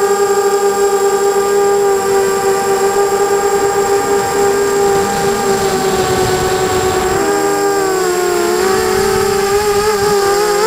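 Brushless motors and propellers of a 250-size FPV racing quadcopter whining at a steady pitch. The pitch wavers and dips briefly about seven seconds in, then climbs back as the throttle changes.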